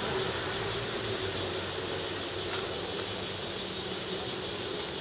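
Steady outdoor ambience carried by a chorus of insects in the trees, buzzing with a regular pulse.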